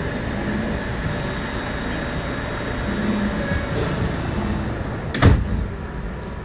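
Steady hum inside an R211A subway car standing at a station, then a single sharp thump a little over five seconds in as the sliding doors close.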